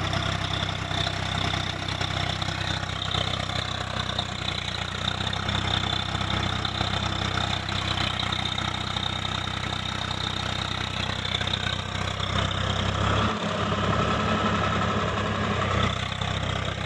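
Swaraj 855 FE tractor's three-cylinder diesel engine running steadily as the tractor crawls through deep mud.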